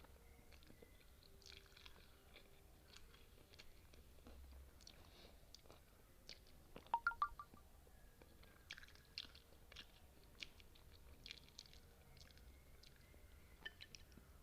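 Faint, close-miked chewing of spicy noodles and kimchi, with soft crunchy bites and scattered wet clicks. About halfway through comes a short cluster of louder, sharper clicks.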